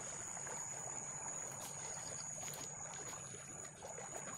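Faint rustling and a few light clicks from a nylon-mesh collapsible shrimp trap being handled, over a steady low hiss and a constant high-pitched whine.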